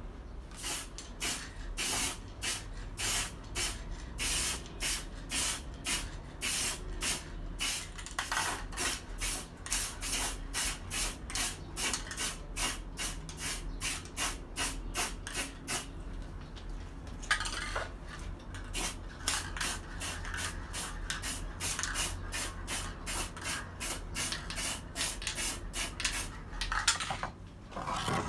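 A small model car part being worked by hand with an abrasive: rhythmic back-and-forth rubbing strokes, about two to three a second and quickening in the second half, with a longer hiss about two-thirds of the way in.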